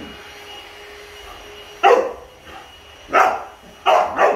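Boxer dog barking four times at a running handheld cordless vacuum cleaner, whose motor hums steadily underneath. The barks start about two seconds in, the first the loudest.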